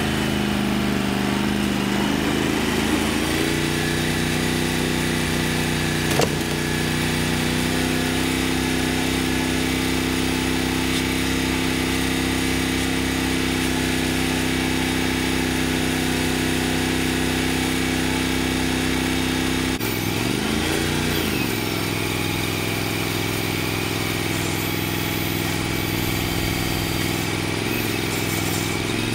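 Wood-Mizer LT35 sawmill's engine running steadily while the band-saw head is run along a pine log. There is a single sharp knock about six seconds in, and about twenty seconds in the engine's pitch dips and comes back up.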